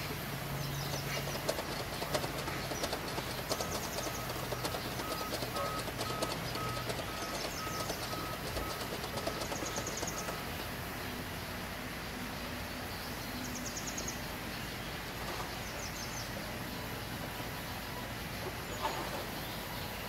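Small birds chirping in quick repeated trills over a steady low hum of sawmill machinery. A faint pulsing tone sounds through the first half.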